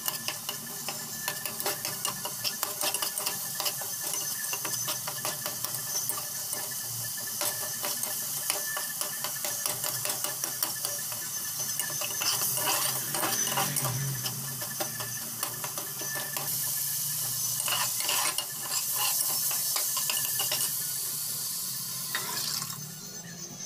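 Metal spatula stirring and scraping a sizzling tomato masala frying in oil in an aluminium pressure cooker, with many quick clicks of metal on metal. Near the end cooked dal is poured in and the sizzle drops away.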